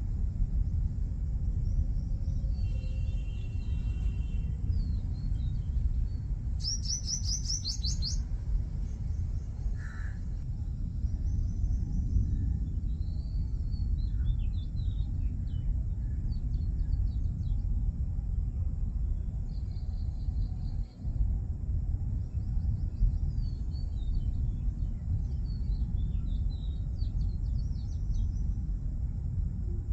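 Small birds chirping and singing in scattered phrases, with one loud trill about seven seconds in, over a constant low rumble.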